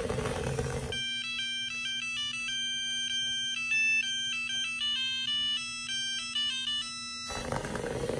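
A short electronic jingle of quick, stepped, beeping notes, like a ringtone, starting about a second in and stopping near the end. It plays over a steady low hum, after a second of background noise.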